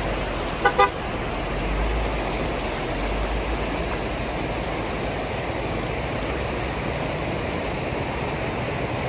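A 4x4 driving, with steady engine and tyre noise, and two short horn toots a little under a second in.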